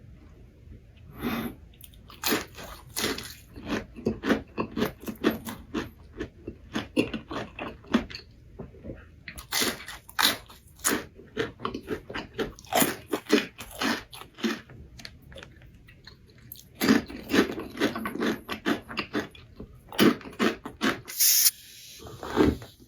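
Close-miked eating of crispy food: loud crunching bites and wet chewing in quick, irregular crackles, with a short lull in the middle.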